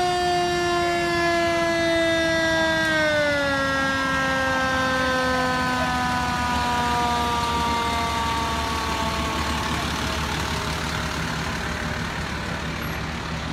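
Fire truck's siren sounding one long blast, its pitch holding steady for a few seconds, then sliding slowly down and fading away about ten seconds in as the truck's engine rumbles past.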